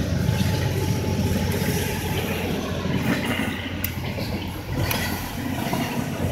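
A steady low rumble heard from inside a car, made up of the car's engine and a freight train of autorack cars rolling past at a grade crossing. A sharp click sounds about five seconds in.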